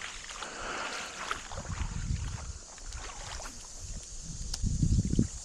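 Wind buffeting the microphone, with low rumbling swells about two seconds in and again near the end, over a steady outdoor hiss.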